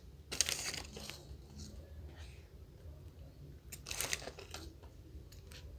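Two short bursts of rustling and crinkling, just under a second in and again about four seconds in, as gram flour (besan) is added to a steel mixing bowl.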